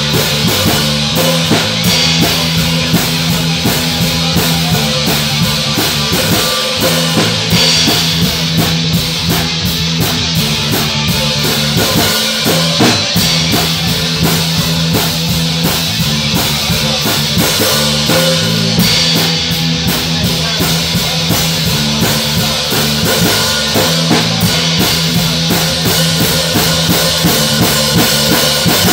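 Live rock band playing: electric guitars over a drum kit with a steady bass-drum beat.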